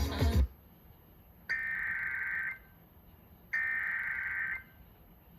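Emergency Alert System SAME data bursts: two buzzy warbling digital tones, each about a second long and a second apart, the header that opens a new alert. A loud noisy sound cuts off about half a second in.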